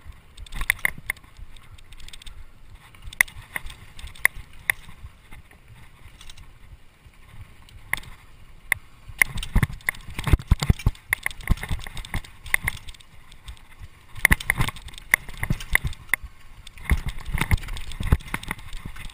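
Mountain bike clattering over a rough dirt trail: irregular clicks and rattles from the chain and frame, with heavy thumps as the wheels hit bumps. The rattling grows denser and louder about halfway through, on the rougher descent.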